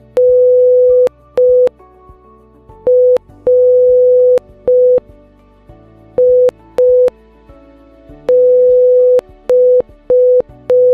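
Morse code beeps from a web-based Morse translator: one steady mid-pitched tone keyed on and off in short dits and longer dahs, with a click at each start and stop. Faint background music plays underneath.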